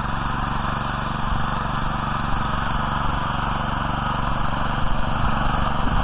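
Oka walk-behind tractor's petrol engine running steadily as it pulls goose-foot loosening tines through the soil.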